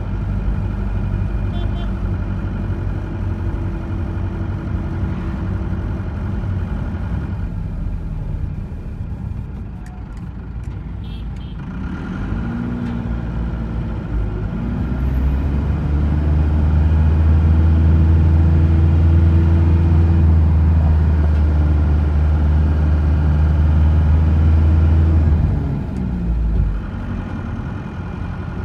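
Engine and road noise of a vehicle heard from inside as it drives. The engine note climbs about twelve seconds in, holds loud and steady for around ten seconds, then drops near the end.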